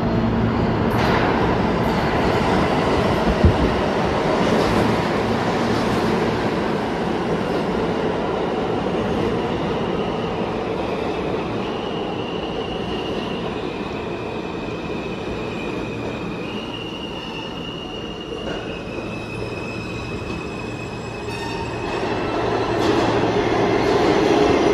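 New York City subway train running on steel rails, with a continuous rumble and wheels squealing in thin high tones that shift in pitch through the middle stretch. The sound eases a little, then grows louder again near the end.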